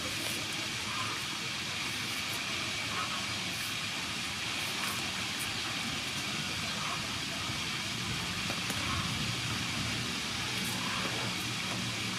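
Steady hissing background noise, with faint short scrapes from a handheld vegetable peeler stripping the skin off a cucumber every second or so.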